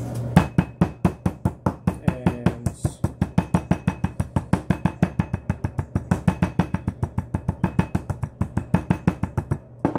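Metal meat pounder beating a pork chop wrapped in plastic on a cutting board: a fast, steady run of thuds, about five a second, that stops just before the end. The chop is being flattened thin for chicken-frying.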